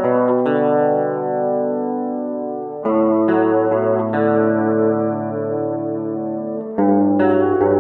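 Electric guitar played through a homemade STM32 microcontroller effects pedal with a modulation effect on, chords struck and left to ring, with new chords struck several times.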